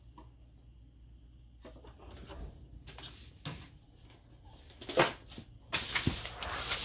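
Kittens scampering and tussling on a wooden floor: scattered light taps and knocks, one sharp knock about five seconds in, then about a second of loud rustling and scraping near the end.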